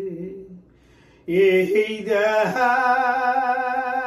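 A man singing a Bengali folk song in Rangpuri dialect, unaccompanied. A held note fades out at the start, and after a short breath-pause of about half a second he starts the next line on 'ei' and settles into one long held note.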